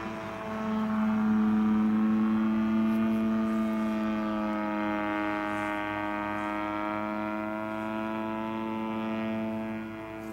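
Two-stroke DLA 64 twin-cylinder gasoline engine of an Extra 260 model aerobatic plane running in flight, a steady buzzing drone. It grows louder about a second in, dips in pitch midway and climbs back, and eases off a little near the end.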